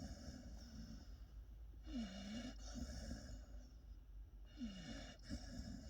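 Pit bull puppy snoring in its sleep, with a stronger snoring breath about two seconds in and another about two and a half seconds later. Each carries a falling tone.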